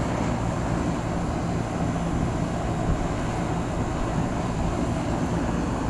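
2004 Lennox Merit Series 1.5-ton heat pump outdoor unit running in cooling mode: a steady compressor hum under the even air noise of the condenser fan.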